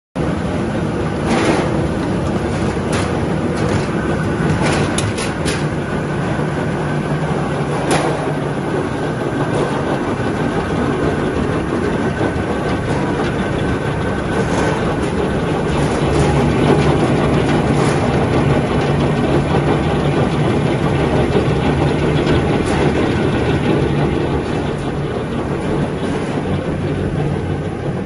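Potato washing and peeling machine running steadily: a motor hum under a continuous rattle of potatoes tumbling and knocking through the machine, with a few sharper knocks in the first several seconds.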